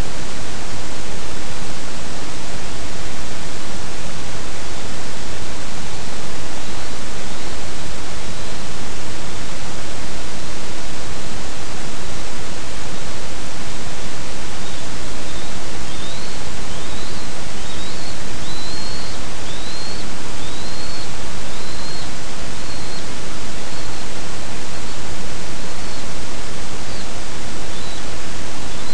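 Loud, steady hiss with no change, covering everything. Through it, faint short high chirps, each rising a little, come about once a second from about seven seconds in and are clearest about halfway through, as a bald eagle lands at the nest.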